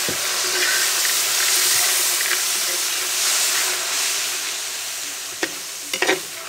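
Vinegar poured into a hot pan of fried beef and masala, sizzling and hissing loudly with steam, the hiss slowly dying down. A few sharp clinks of the stirring utensil against the pan come near the end.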